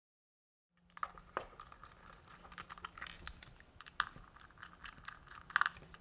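Small screwdriver backing out the tiny faceplate screws of a plastic keypad enclosure, with irregular light clicks and scrapes of the tool and screws. It starts about a second in, after dead silence.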